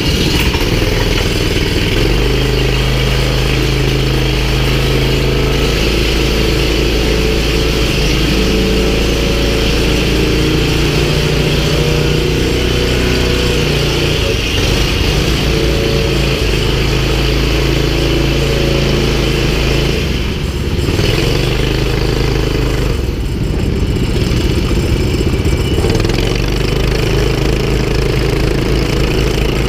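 Kart engine heard from on board, running loud and steady as the kart pulls out of the pit lane and accelerates onto the track. The engine note steps in pitch and dips briefly twice about two-thirds of the way through.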